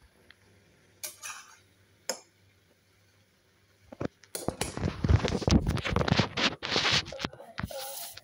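Metal spatula scraping and stirring Maggi noodles in a steel wok, a rough scratching that starts about halfway through. Before it come a couple of light clicks.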